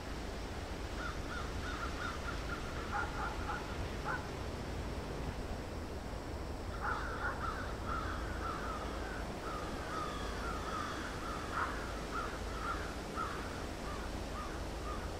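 Crows cawing in quick repeated calls: one short run about a second in, then a longer, busier run from about seven seconds until near the end, over a steady low rumble.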